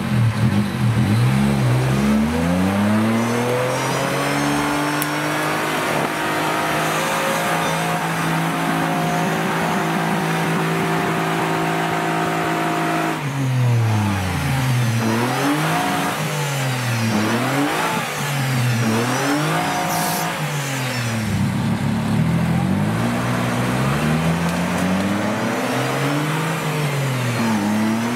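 Off-road 4x4's engine pulling hard: revs climb over the first couple of seconds and hold steady at high revs for about ten seconds, then the engine is revved up and down repeatedly, roughly once every second and a half.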